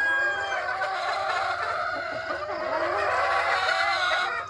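Many gamefowl chickens calling at once, roosters crowing and hens clucking, their calls overlapping with no break.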